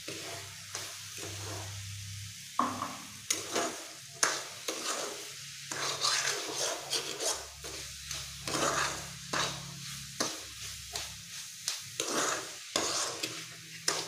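Metal spatula stirring and scraping grated coconut and sugar around a non-stick pan in repeated, uneven strokes, with a light sizzle under it. The mixture is being dry-fried on a low flame for coconut laddoo. The strokes are sparse for the first couple of seconds, then come about every half second.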